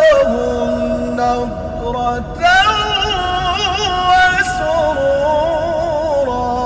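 A man's voice reciting the Quran in melodic tajwid style, drawing out long held notes with wavering ornaments in pitch.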